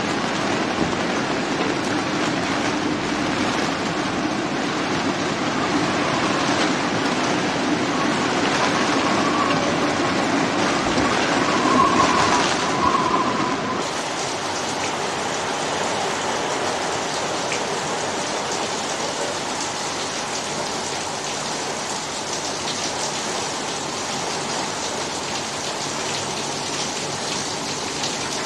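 Fast-moving floodwater rushing, heard as a steady loud rush of water mixed with heavy rain. About halfway through it changes abruptly to a different, slightly quieter rush of floodwater.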